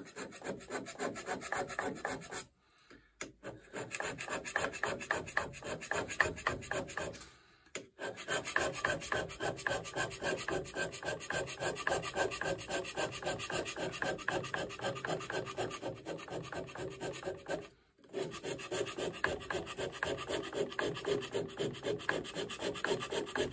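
Carbide scraper scraping a metal lathe toolpost's seat in quick, repeated strokes, taking down marked high spots so the toolpost beds evenly on the topslide. The strokes stop briefly three times.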